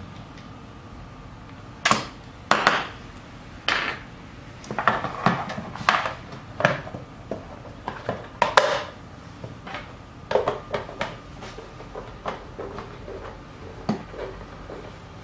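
Irregular sharp clicks and knocks of a plastic mandoline slicer being handled on a wooden board, coming in uneven clusters with the loudest about two seconds in and again about eight and a half seconds in.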